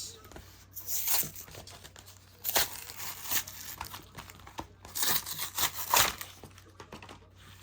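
Pokémon card pack packaging crinkling and tearing as it is handled and opened, in several bursts.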